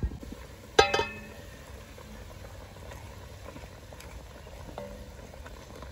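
A metal pot lid clanks against the pot about a second in and rings briefly as it is lifted off. Faint scrapes of a ladle stirring in the pot follow.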